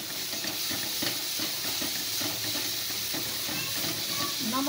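A spatula stirring and scraping tomato masala frying in oil in a metal pan, over a steady sizzle.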